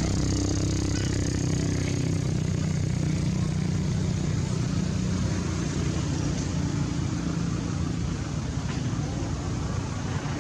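A motor engine running steadily, a low hum over background noise that thins out after about six seconds.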